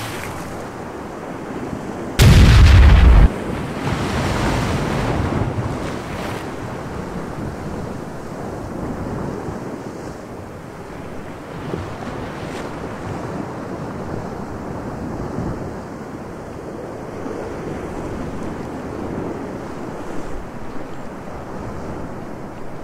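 One loud heavy-gun blast about two seconds in, its rumble trailing off over a few seconds, then a steady wash of sea waves and wind.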